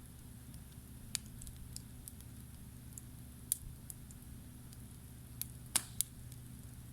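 Wood campfire crackling: scattered sharp pops, about five of them, the loudest close together near the end, over a low steady hum.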